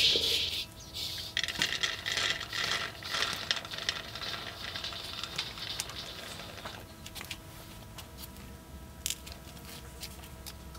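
Peanuts rattling and scraping in a dry wok as a spatula stirs them, then scrapes them out into a bowl. The rattling is busiest in the first six or so seconds, then drops to a few faint clicks.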